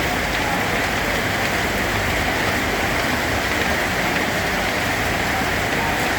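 Steady rain falling, a continuous even hiss of many drops that does not change.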